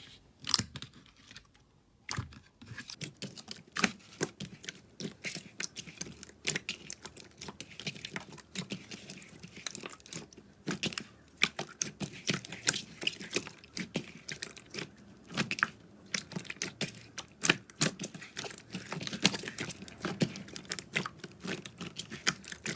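Slime being squeezed and stretched by hand, with a dense run of irregular sticky clicks and pops.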